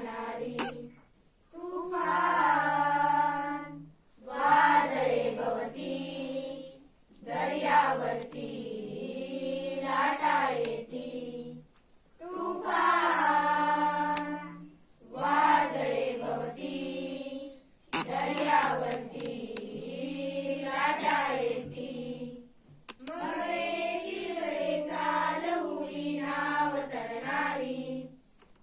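A group of schoolchildren singing a song together, in phrases of a few seconds with held notes and short pauses between them.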